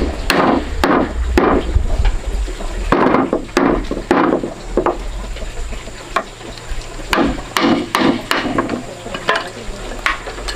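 Wooden mallet striking a chisel into a timber beam, chopping out a mortise: about a dozen sharp wooden knocks in irregular runs, with a pause of about two seconds just past the middle.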